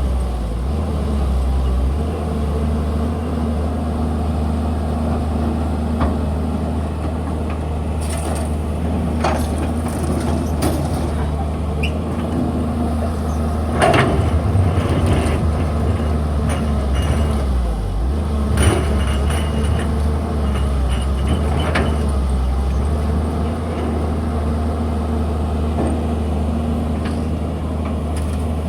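Excavator's diesel engine running steadily, with scattered metallic clanks and knocks from the machine at work, the loudest about halfway through.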